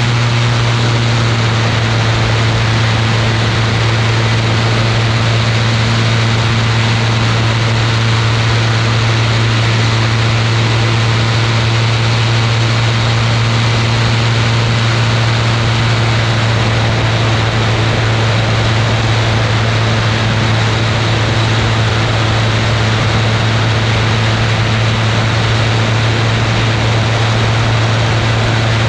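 Ultralight aircraft's engine and propeller running at a steady pitch in flight, a constant low drone with a rush of wind over it.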